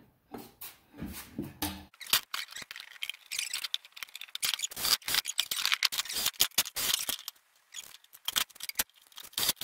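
Rapid, irregular clicking and scraping of hand work on a wooden board, with no motor running.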